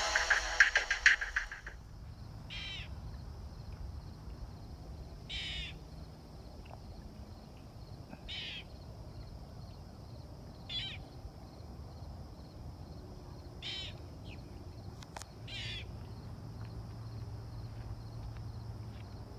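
Intro music ends about a second and a half in; after that a bird calls six times, short calls spaced roughly three seconds apart, over a steady high-pitched drone and a low rumble.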